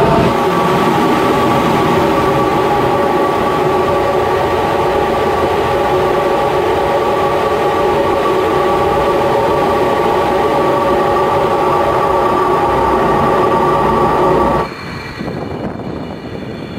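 Steady jet engine and airflow noise inside the cockpit of a Su-34 fighter-bomber, a loud rumble with several steady whining tones. Near the end it cuts suddenly to a quieter jet sound with a thin high whine.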